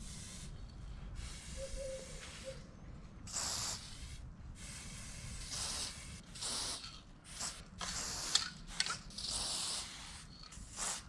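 Aerosol spray paint can hissing in a series of short bursts, about half a second to a second each, as paint is sprayed onto a wall.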